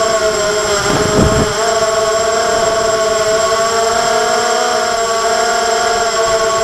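RCTimer Argonaut hexacopter's electric motors and propellers whining steadily, heard from the camera on board. A brief low rumble of wind on the microphone comes about a second in.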